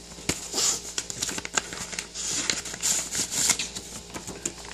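Paper rustling and crinkling as it is handled, with many short, light clicks and taps.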